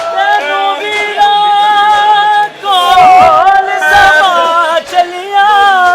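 Unaccompanied voices singing a nauha, a Shia mourning lament, in long held, wavering notes.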